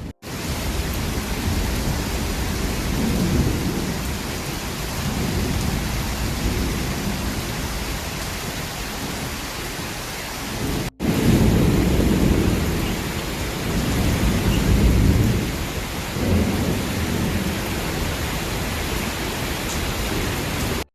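Heavy rain and wind: a steady hiss of rain with low rumbles swelling and fading every few seconds. The sound cuts out for a moment about halfway through.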